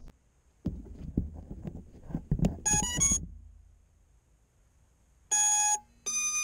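Handling clatter on an FPV quadcopter, ending in a quick run of stepped electronic beeps from its BLHeli 30 A ESCs powering up. Near the end come one long lower beep and then one long higher beep, the pattern ESCs give when they are armed and ready.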